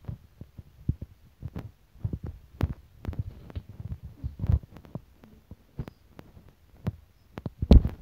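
Irregular dull thumps and knocks from a handheld camera being handled and carried around, with one louder thump near the end.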